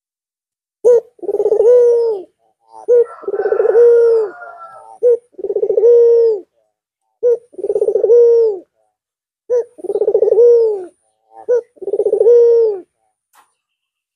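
White (albino) ringneck dove (puter) cooing: six calls, each a short note followed by a longer rolling coo that drops in pitch at its end, about every two seconds.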